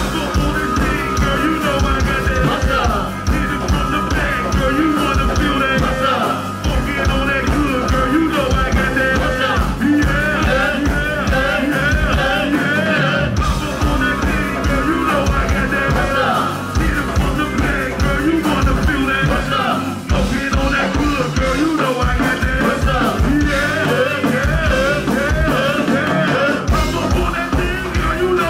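Loud band music with a busy drum beat and wavering melody lines over it, played without a break.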